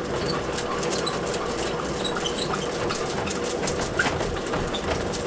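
Sewer drain-cleaning machine running, its motor humming steadily while the spinning cable rattles and clicks in the drum and line.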